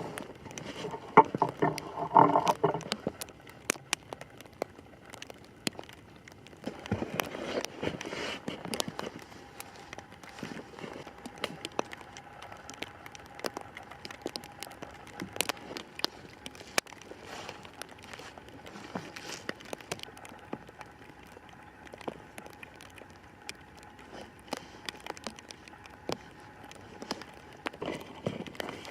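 Scattered clicks, crackles and rustling of rope and small tree poles being handled while lashing a shelter's roof frame, louder in two spells near the start. A faint steady hum runs through the middle.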